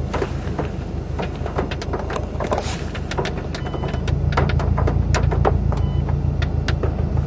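Car engine idling, a low steady hum that grows louder about four seconds in, with scattered raindrops ticking irregularly on the roof and windshield, heard from inside the car.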